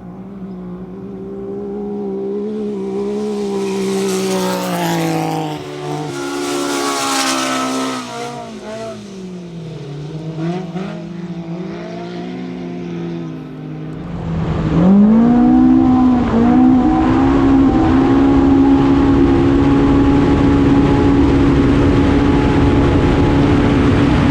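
UTV race car engine revving up and down as it goes through turns. A little past halfway it gets louder and holds steady high revs under a loud rushing noise.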